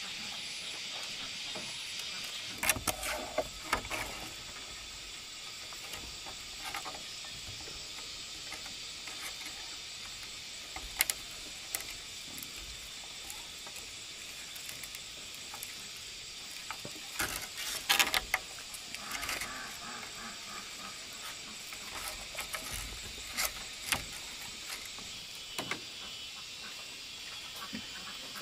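Bamboo poles knocking and rattling in scattered clusters as a bamboo roof frame is handled and lashed together, loudest about three seconds in and again around eighteen seconds. Under this runs a steady high chirring of insects.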